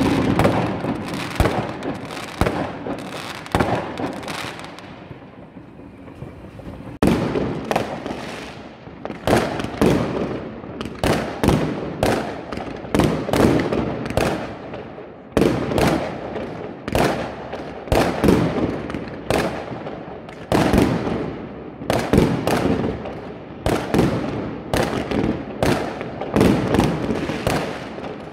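New Year's fireworks going off in rapid succession: rockets and aerial shells give many sharp bangs and crackles. The bangs ease off for about three seconds a few seconds in, then come again about every half second to a second.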